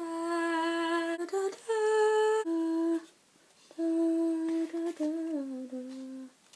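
A young woman singing a wordless tune in long held notes, with a pause partway through and a final note stepping down lower.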